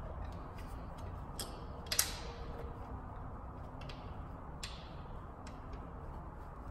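A few scattered light metal clicks and taps, the loudest about two seconds in and another past the middle, as a power steering pump is set against its mounting bracket on a Toyota 2JZ-GTE engine, over a steady low background hum.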